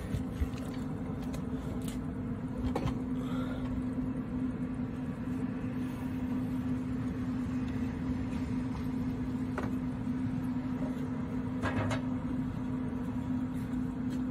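Steady low mechanical hum with one constant tone over a low rumble, with a few faint light taps.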